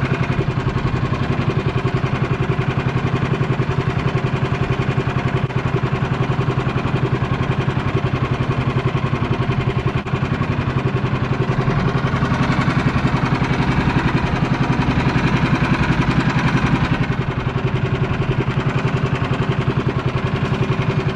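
A small engine running steadily at idle, with an even, fast chugging.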